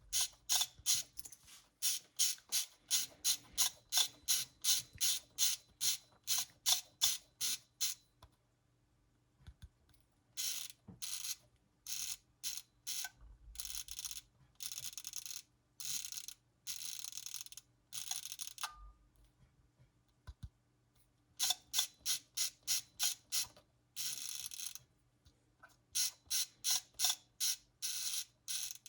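Soviet AChS-1 aircraft cockpit clock being wound: its winding knob turned in short repeated twists, each a quick clicking stroke about two a second, in three spells with short pauses between.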